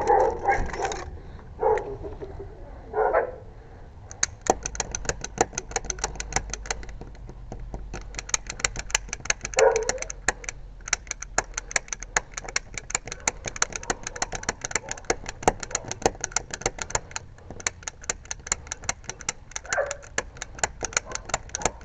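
Lock picks working a door lock's pins: a long run of fast, sharp metallic clicking that starts a few seconds in. Dogs behind the door bark a few times, briefly.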